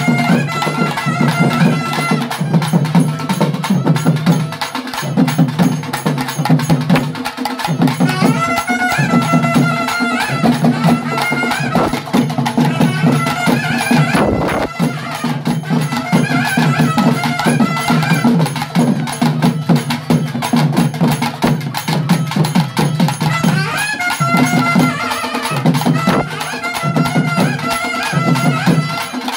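Tamil folk ritual music: a nadaswaram-type double-reed pipe plays a wavering melody over drums beaten with sticks in a steady, driving rhythm.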